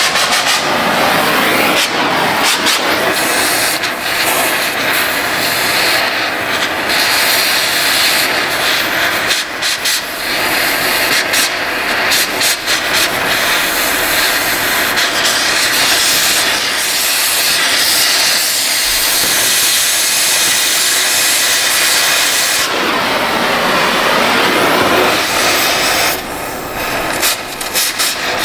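Oxy-fuel cutting torch running with a steady loud hiss as it burns through a rusted-in bolt on an exhaust Y-pipe flange. The hiss softens briefly near the end.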